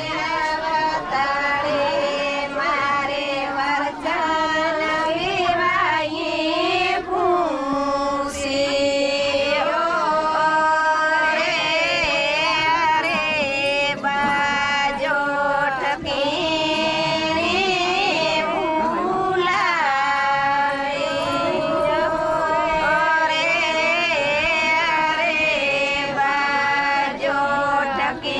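A group of women singing a traditional Ahir wedding folk song (lagna geet) together, with long held notes that waver in pitch.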